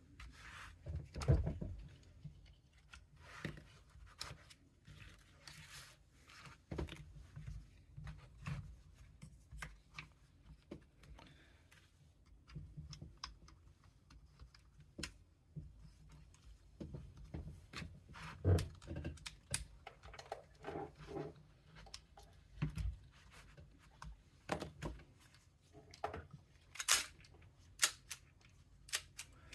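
Irregular clicks, knocks and light scrapes of plastic and metal parts as a Tokyo Marui M&P9L airsoft pistol is handled and fitted into a Recover Tactical Stabilizer chassis, with a few sharper clicks about two-thirds of the way through and near the end.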